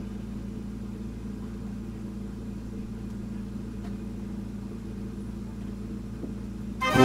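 A steady low hum with a few held low tones. Music starts up just before the end.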